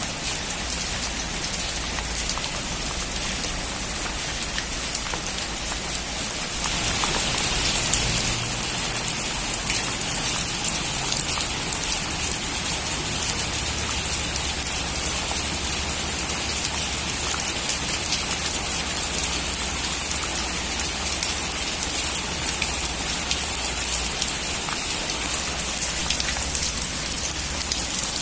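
Steady rain drumming on a metal roof, a dense patter of drops that grows louder about six seconds in.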